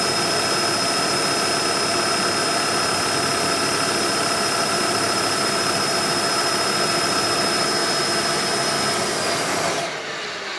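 Milling machine spindle driving a bearing-guided chamfer router bit, cutting a chamfer along the edge of a white Starboard (HDPE) plastic tray as it is hand-fed past: a steady high whine with cutting hiss. Near the end the pass finishes and the sound drops to the spindle running free.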